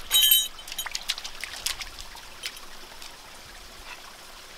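Shallow water trickling over stones, with scattered small splashes and clicks from a dog's paws in the wet gravel. A short metallic jingle, like a dog's collar, sounds at the very start.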